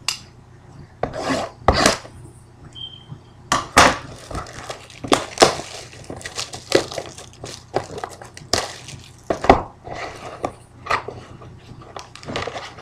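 Plastic shrink-wrap crinkling and tearing as it is stripped off a sealed trading-card box, mixed with the cardboard box being handled. The box lid is flipped open near the end.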